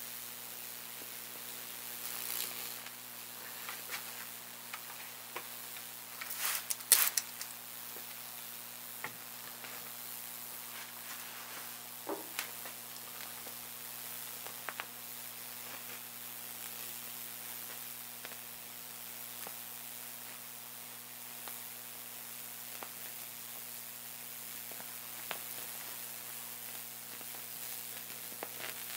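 High-voltage electrical discharge arcing across padauk wood as it burns a Lichtenberg figure: a steady sizzling hiss over a low electrical hum, with scattered sharp crackles and pops. The loudest cluster of pops comes about seven seconds in.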